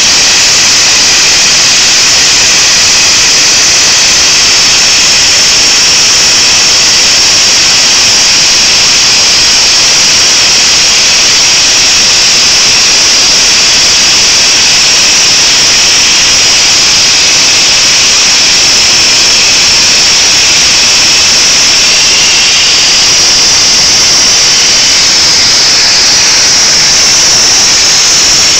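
Plasma cutter torch cutting through steel plate: a loud, steady, high-pitched hiss from the arc that carries on unbroken.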